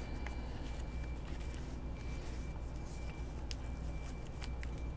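Quiet handling of a SOFTT-W tourniquet's webbing as it is wound back and forth, a few faint scratchy ticks over a steady low hum.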